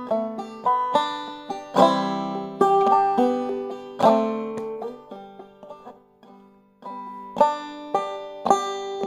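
Banjo played clawhammer style in G tuning (gDGBD): rhythmic downstroke picking and brushing of the strings, the notes ringing and dying away. About halfway through the playing thins to a few soft notes, then picks up again full.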